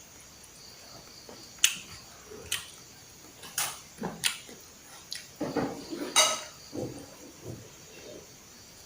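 Cutlery clinking against a plate in short sharp clicks, about five times, with softer low eating sounds in between.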